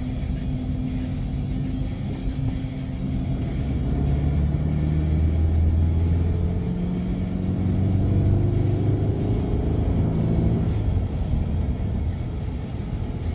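Road noise inside a moving car's cabin: tyre and engine rumble, with a deep engine hum that grows louder about four seconds in and eases near the end.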